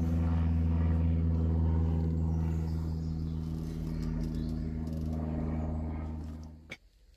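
Steady low engine-like hum. It stops abruptly with a click shortly before the end.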